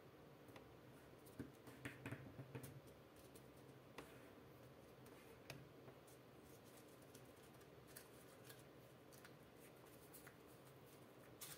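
Faint paper handling: a sheet of blue origami paper being folded and creased by hand, with a short cluster of soft crinkles and rustles about two seconds in and a few scattered soft ticks after.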